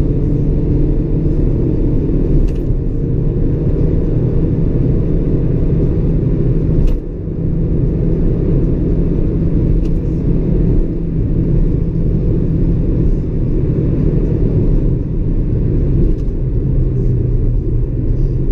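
Car engine and road noise heard from inside the cabin while driving, a steady low engine hum that breaks off briefly about seven seconds in and then picks up again.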